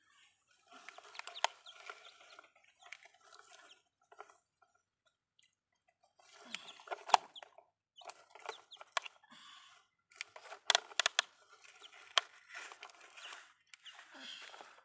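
Chickens clucking in short repeated runs, with a few sharp clicks and knocks, the loudest about seven and eleven seconds in, from plastic toy trucks being handled in the mud.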